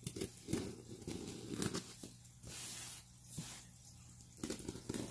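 A shipping package being torn open and handled: tearing and crinkling of packaging with scattered knocks, and a longer tear about halfway through.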